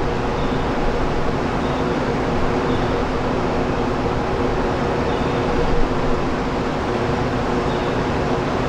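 Steady mechanical drone: a few held humming tones under an even rushing noise, unchanging throughout.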